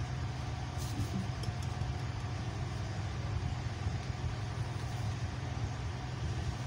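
A steady low motor hum that runs unbroken and does not change.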